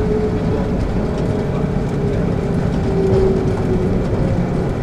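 Mitsubishi Crystal Mover rubber-tyred automated people mover running along its guideway, heard from inside: a steady low rumble with a faint whine from the IGBT-VVVF traction drive.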